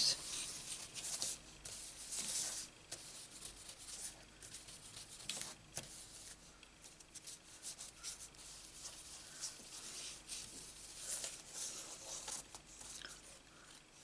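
Ink blending brush rubbing over the embossed edges of a paper frame: faint, irregular scratchy brushing strokes on paper.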